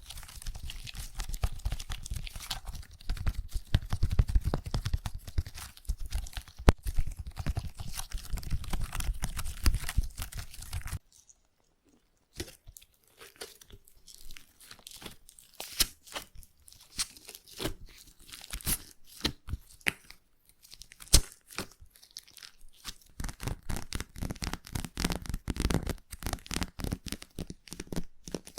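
Slime being squished and pressed against an ASMR ear microphone, giving dense, sticky crackling and popping with a deep rumble. About 11 seconds in the sound stops briefly. It resumes as lighter, sparser crackles that grow busier again near the end.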